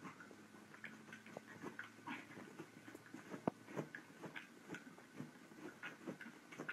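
Small dog in a convulsive seizure in its padded bed: faint, irregular clicking and scuffling from its convulsions, with one slightly sharper click about halfway through.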